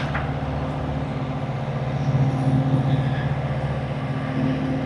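A steady low hum of an engine or motor running at constant speed.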